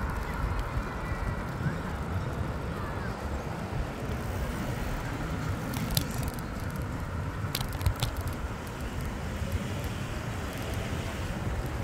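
Bicycle riding along a road, with a steady low rumble of tyres and wind on the microphone and traffic in the background. A few sharp clicks and knocks come near the middle as the bike rolls over brick paving.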